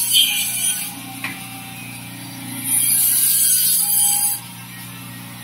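Electric fish-scaling machine running with a steady motor hum. Bursts of harsh, high-pitched rasping come as a fish is pressed against it, once at the start and again for a longer stretch about halfway through.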